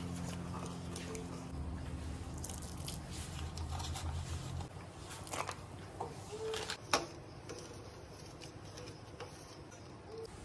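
Metal spoon stirring and knocking against a steel pan of milk: scattered clicks and taps, with a sharp tap about seven seconds in. A low steady hum runs under the first half and stops about halfway.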